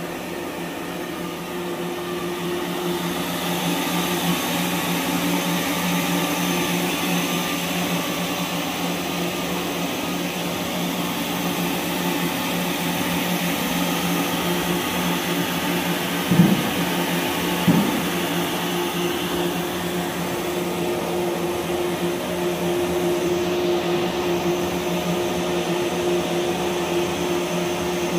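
Single jersey circular knitting machine running: a steady mechanical hum and whir with a hiss over it. Two short knocks come about two-thirds of the way through, a little over a second apart.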